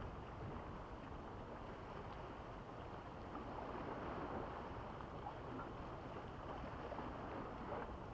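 Steady wind rumbling on the microphone over the sea washing against rocks, with a few faint ticks in the second half.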